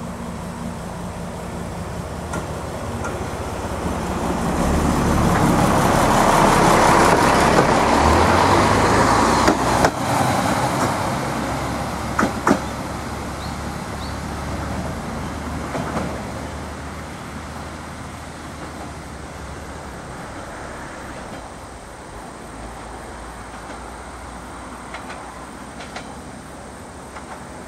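Akechi 10-type single-car diesel railcar pulling away: its engine builds up and grows loud over the first ten seconds, with a few sharp clacks of wheels over rail joints, then fades steadily as it moves off down the line.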